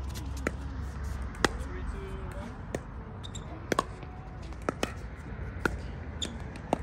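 Pickleball rally: sharp pops of paddles hitting the plastic ball back and forth, about nine hits at irregular intervals, over a steady low hum.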